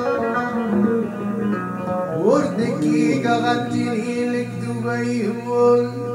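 Amazigh song played on a banjo and an electric guitar, with a man singing over the plucked strings.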